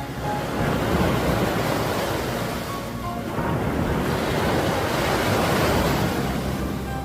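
Sea waves washing onto the shore, the surge swelling twice, with wind buffeting the microphone.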